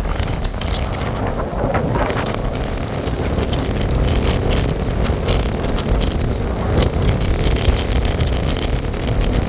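Strong wind buffeting the microphone: a loud, steady low rumble with short crackles scattered through it.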